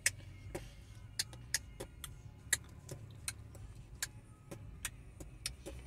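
Low steady rumble of a car cabin with scattered faint clicks and taps at irregular intervals.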